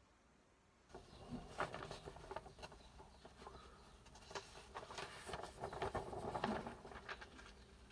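Magazine pages rustling and crackling as they are handled and turned, starting about a second in.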